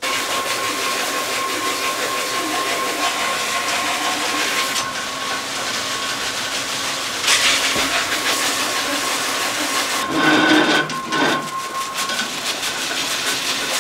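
Large motor-driven grinding stone, a wheel of about 300 kg, spinning in its belt drive: a steady hiss with a faint constant whine and hum. About ten seconds in a louder, rougher stretch as a blade is worked against the stone.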